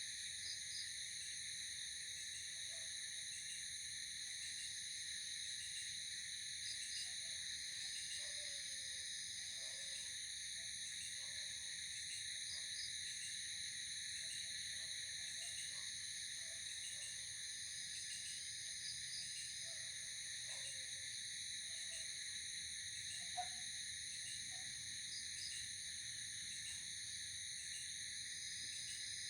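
Night insect chorus: a steady, many-layered high trilling with short chirps recurring every few seconds. Faint, short, lower calls are scattered through it.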